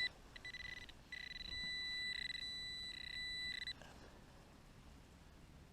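Garrett Pro-Pointer pinpointer sounding its alert tone: a few short beeps, then a steady high tone held for about two and a half seconds that stops suddenly, signalling metal close to its tip.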